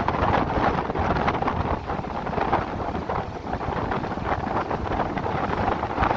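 Wind buffeting the microphone: a loud, gusty rushing noise with uneven low rumble.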